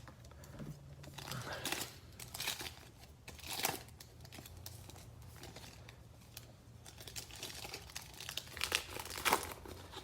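Trading card pack wrapper crinkling and tearing as it is pulled open by hand, in several short bursts, the pack being hard to open.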